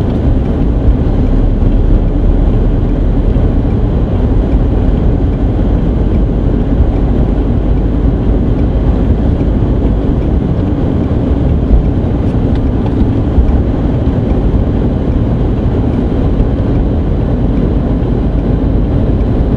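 Steady cabin noise of a car driving on a snowy interstate in a blizzard: engine and tyre rumble with the storm's wind against the car, even and unbroken throughout.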